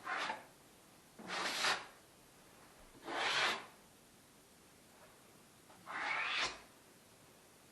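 Four rubbing or scraping strokes across a surface, each about half a second long and spaced one to three seconds apart.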